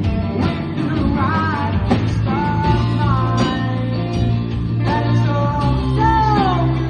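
Rock song with bass and guitar under a lead melody of held notes that slide down in pitch at their ends.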